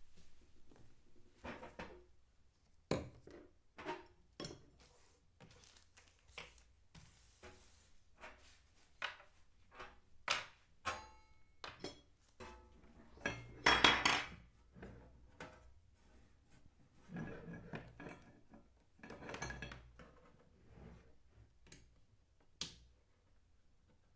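Hard objects being handled and set down: scattered clicks and knocks, with a louder cluster of knocks about fourteen seconds in and a stretch of rustling handling a few seconds later.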